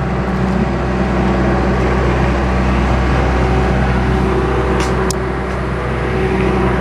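John Deere 310G backhoe's four-cylinder diesel engine running steadily, warmed up. Two brief clicks sound about five seconds in.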